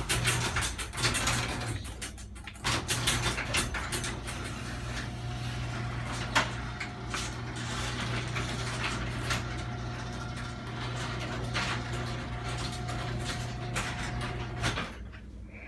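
LiftMaster 1/3 hp chain-drive garage door opener running to close the door: a steady motor hum with the rattle and clicking of the chain and door. It stops briefly about two and a half seconds in, then runs steadily and cuts off suddenly near the end as the door closes.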